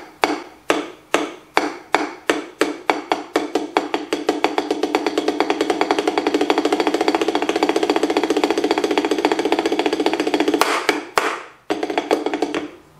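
Drumsticks played on a drum practice pad: single strokes that speed up into a fast, even roll lasting several seconds, then a short break and a few more strokes near the end.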